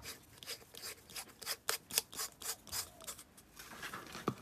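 LED bulb's metal screw base being turned into a plastic lamp holder: a run of short, irregular clicks and scrapes from the threads and plastic housings rubbing, with one sharper knock near the end.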